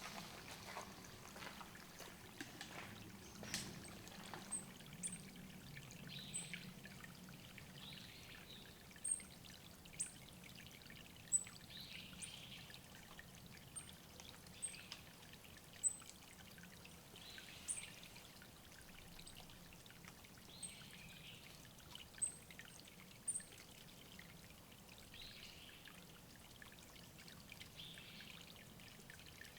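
Faint trickle of water at a forest watering hole, with very short, thin, high-pitched bird call notes repeated every second or two.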